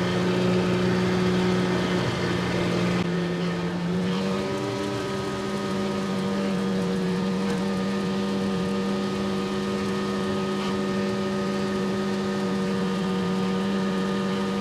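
Boat motor running steadily under way, with a slight rise in pitch about four seconds in.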